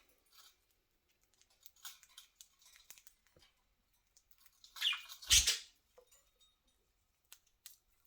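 Budgies pecking and nibbling at a treat: scattered small clicks, with a short bird call and a thump about five seconds in.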